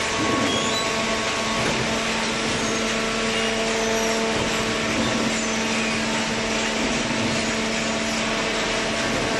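Hydraulic baler running: a steady, loud machine hum with constant tones over a broad hiss, typical of its electric motor and hydraulic pump.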